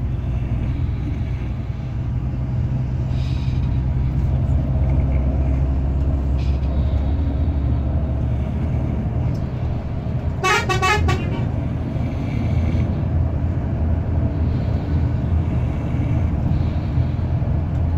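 Bus engine droning steadily, heard from inside the sleeper cabin. About ten seconds in comes one brief, pulsing horn blast.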